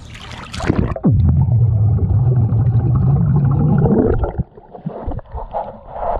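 Splash of an action camera going under a pool's surface, then about three seconds of muffled underwater sound: a man blowing bubbles with a low drawn-out vocal drone. A little past four seconds in, he surfaces to splashing and dripping water and spits water from his mouth.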